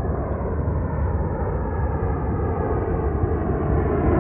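Boeing 777 airliner's twin jet engines rumbling on final approach as the plane nears overhead. The rumble grows steadily louder and its hiss reaches higher.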